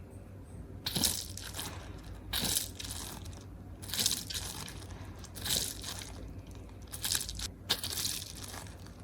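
Crunchy slime being squeezed and pressed by hand, giving crackling, crunching bursts about every second and a half over a faint low hum.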